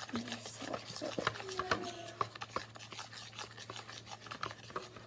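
Scratchy rubbing and scraping with many small clicks as a homemade slime mixture is worked and mixed, the mix still grainy rather than stretchy.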